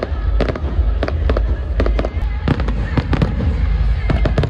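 Aerial fireworks bursting in a rapid, irregular run of bangs and crackles, several a second, over a steady low rumble.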